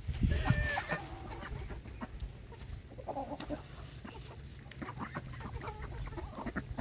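A mixed flock of chickens and ducks feeding on cracked corn: soft chicken clucks, a few short calls in the first second and again around three seconds in, and scattered light clicks of beaks pecking corn off the dirt.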